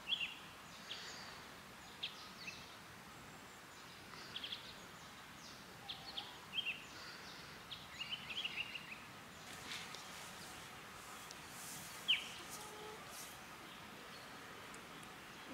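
Small birds chirping in short, scattered calls over a faint steady outdoor hiss.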